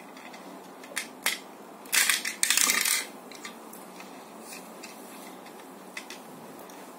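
Plastic parts of a Tobot transforming toy robot being handled and fitted together: a couple of sharp clicks about a second in, then about a second of loud crackly rattling and scraping.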